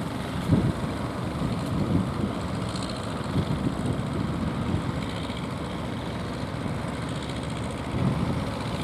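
Fishing boat engine running steadily, with wind buffeting the microphone.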